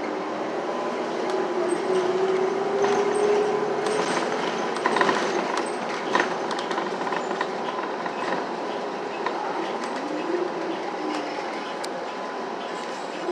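Cabin noise of a New Flyer city bus under way: road noise with rattling and a few knocks, and a drivetrain whine that rises slowly over the first few seconds, with another short rise and fall later on.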